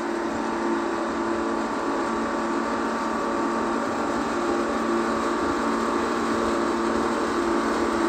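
Timberjack 230 skidder's Detroit Diesel engine running steadily under load as the machine pushes snow with its front blade, growing slightly louder toward the end.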